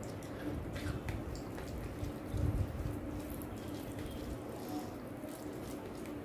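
Fingers mixing rice into chicken curry gravy: soft wet squelches and sticky little clicks, with a dull low thump about two and a half seconds in.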